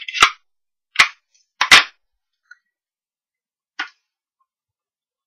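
A few sharp plastic clicks and knocks from a Stampin' Up ink pad's hinged lid snapping open and the pad and acrylic stamp block being set down on the table. The loudest come about one and nearly two seconds in, with a fainter click near four seconds.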